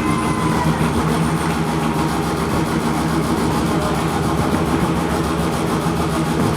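Mazda RX7's rotary engine running at steady revs: an even, unchanging low drone with no revving.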